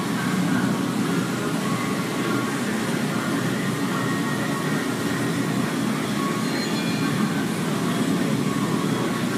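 Steady low mechanical rumble with a hiss over it, the constant background running of workshop machinery.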